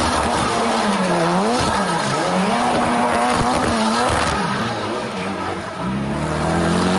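Ford Fiesta rally car drifting in circles, its engine revving up and down under the throttle while the tyres squeal and hiss as they spin on the tarmac. The engine note dips about a second in, holds high through the middle, drops near four seconds, then climbs again near the end.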